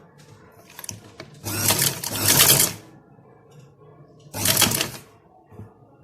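Electric sewing machine stitching in two short runs: a longer run of about a second and a half, then a shorter burst about a second and a half later.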